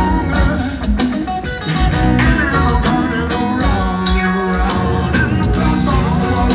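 Live rock band playing, heard from the audience through the venue's PA: drums keep a steady beat under electric guitar, and a male lead singer is singing.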